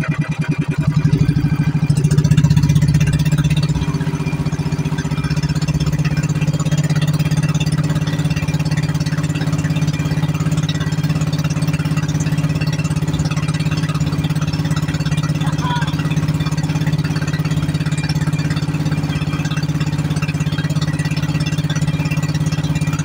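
Outrigger boat's engine running under way; its separate firing beats quicken and it grows louder about a second in, then it settles to a steady drone.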